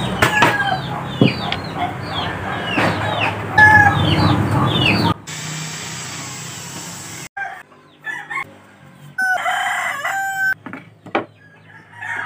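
A hammer taps nails into a small wooden frame in quick repeated blows, then an electric drill runs steadily for about two seconds. A rooster crows and clucks in the quieter second half.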